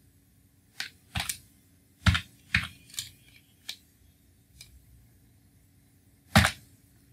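Computer keyboard keys being pressed: a handful of separate, irregularly spaced keystrokes, the loudest about two seconds in and near the end.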